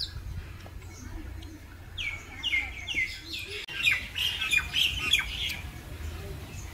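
A bird calling: a quick run of about five falling notes about two seconds in, then a denser burst of high calls for another second and a half.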